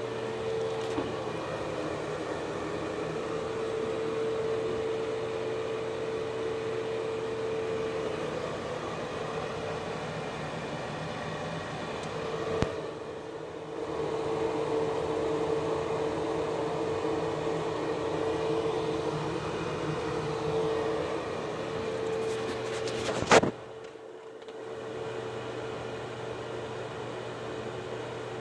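Unmarked Broan-style ceiling bathroom exhaust fan running: steady air noise with a steady mid-pitched motor hum. A sharp click about halfway through and a louder one near the end, after which the air noise briefly drops before coming back.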